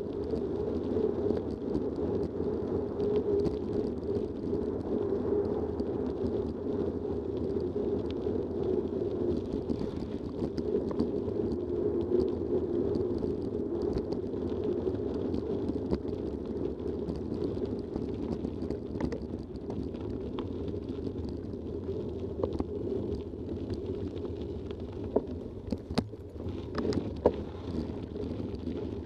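Mountain bike rolling fast over a gravel track: a steady rumble of the tyres on gravel, with a few sharp knocks and rattles from bumps near the end.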